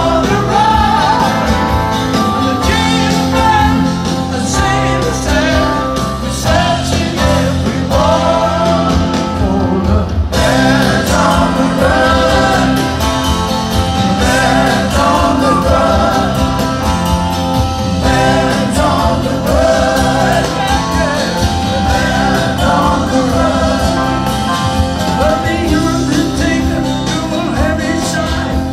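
A live rock band with a male lead singer, electric bass and keyboards, heard from within a large concert crowd. About ten seconds in, the music moves into a new section.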